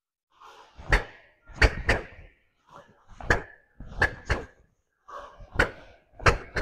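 Karate gi snapping sharply with each punch and block as a karateka steps forward through three-technique hand combinations (sanbon zuki). There are about eight sharp snaps, some in quick pairs, with rustling of the cotton uniform between them, in an echoing hall.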